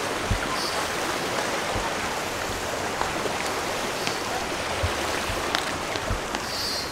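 Creek water rushing steadily as it runs over rock at the head of a waterfall, with a few soft low thumps now and then.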